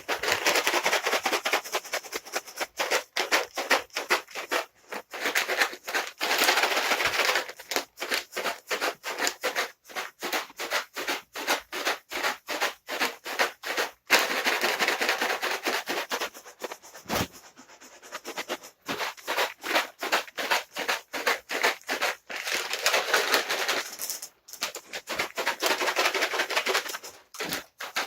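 Dry cat treats being shaken in their container: a rattle of many small pieces, with dense stretches of rapid shaking and sparser clicks between.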